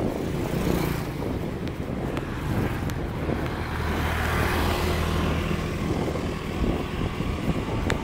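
Riding noise picked up by a chest-mounted phone on a moving mountain bike: wind rushing over the microphone and tyre rumble on asphalt, with a motor vehicle's engine swelling and fading about midway.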